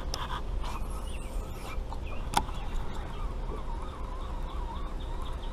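Birds calling along the river, with a wavering trill in the middle, over a low steady background hum of outdoor noise. A single sharp click about two and a half seconds in.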